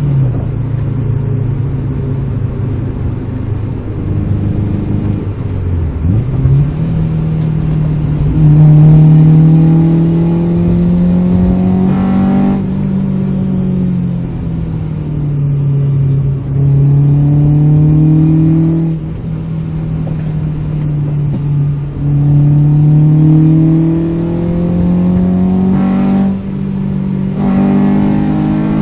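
Honda Civic EG5's VTEC four-cylinder engine heard from inside the cabin, revving up hard under acceleration with the pitch climbing for several seconds, then dropping sharply at each gear change, about three times.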